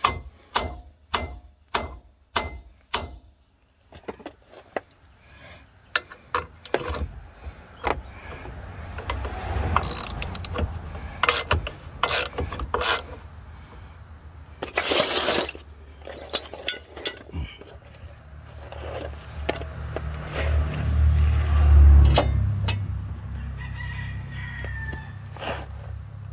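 A steel hammer taps a bolt into a Jeep Cherokee's rear leaf spring hanger, a steady run of sharp knocks about two a second. Then a socket ratchet clicks in short bursts as the hanger bolt is run in and tightened. A low rumble comes in about twenty seconds in.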